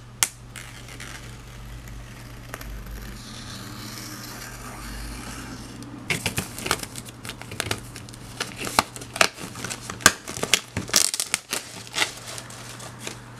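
Plastic shrink wrap being handled and pulled off a framed cork board by hand. It makes a soft rustle at first, then from about halfway a run of sharp crinkles and crackles.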